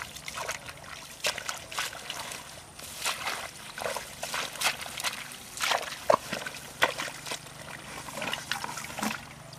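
Hands groping and digging in wet mud and shallow muddy water, giving irregular squelches and small splashes.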